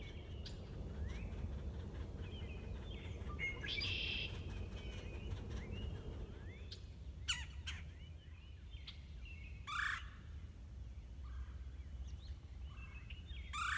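Several wild birds calling and singing, short chirps and gliding notes with a few sharper, louder calls, over a steady low background rumble.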